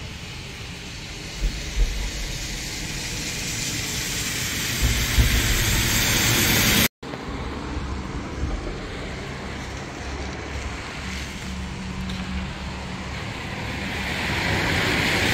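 Steady rushing noise of a flood-swollen river heard from a bridge, with wind buffeting the microphone as an uneven low rumble. The sound drops out for an instant about seven seconds in.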